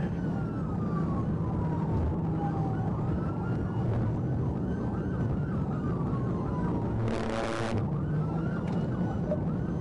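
Police siren wailing in slow rising and falling sweeps over the steady drone of the patrol car's engine and road noise during a high-speed pursuit. A short hiss cuts in about seven seconds in.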